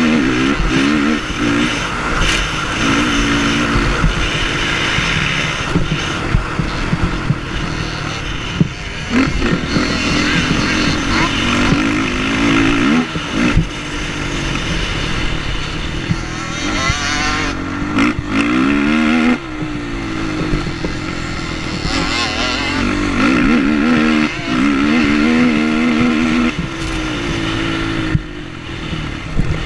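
Sport quad (ATV) engine under hard acceleration, heard close up from the rider's helmet, its pitch repeatedly climbing and dropping with gear changes and throttle lifts, over a steady rush of wind and track noise.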